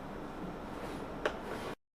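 Low, steady background noise with one sharp click a little past a second in, then the sound cuts off abruptly near the end.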